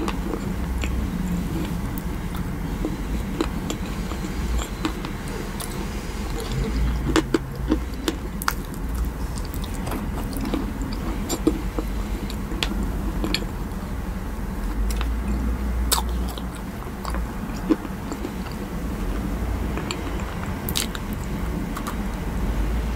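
Close-miked chewing of a green macaron, with scattered sharp mouth clicks and smacks, and a bite into another macaron near the end.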